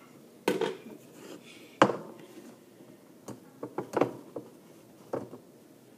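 Kitchenware clattering: a handful of separate knocks and clinks, the loudest a sharp one about two seconds in, with a quick run of taps around four seconds.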